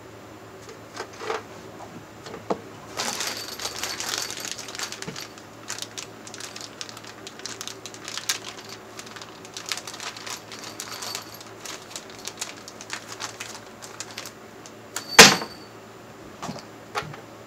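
Hand work on a water heater's water-line hookup: tools and fittings clicking and rattling in a quick, irregular clatter, with one sharp, loud knock about fifteen seconds in and two lighter knocks after it. A steady low hum runs underneath.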